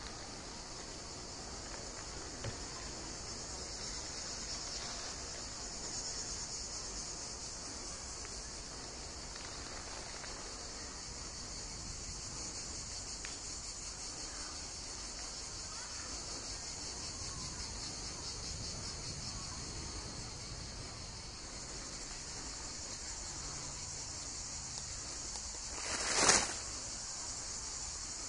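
Steady high-pitched chorus of insects chirring outdoors. Near the end a brief rush of noise swells and falls away within about a second, louder than the insects.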